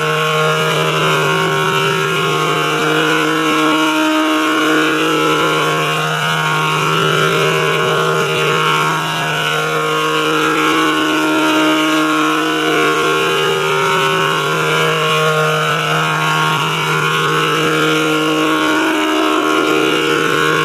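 A sustained electronic drone in G major: several held tones sounding together without a break, the lowest one briefly dropping out about four seconds in and again near the end.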